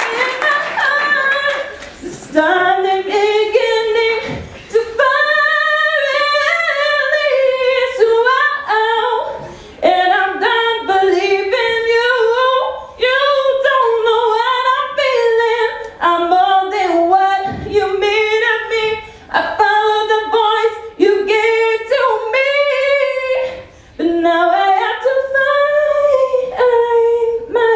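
A woman's solo voice singing into a handheld microphone. She holds long notes that waver and slide in pitch, in phrases of a second or two with short breaks for breath between them.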